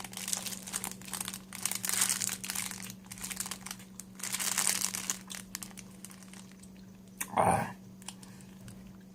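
Plastic bread wrapper crinkling and rustling as it is handled, in bursts over the first six seconds, over a steady low hum.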